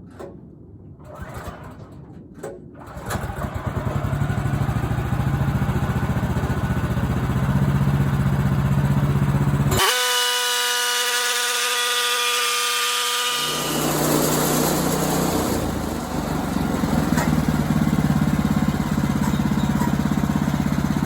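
Portable sawmill engine started: a few short noises, then the engine catches about three seconds in and runs with a steady pulsing beat. From about ten to thirteen seconds in, the rumble gives way to a steady high whine. Then the engine comes back with a harsher hiss over it.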